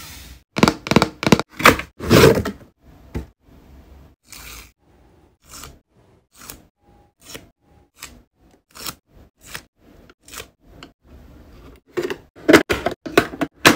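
Hard plastic clicks and taps as a toy mini ATM piggy bank is handled, long fingernails tapping and pressing on its case and buttons. The clicks come in loud clusters at the start and again near the end, sparser and fainter between, with two short faint beeps midway.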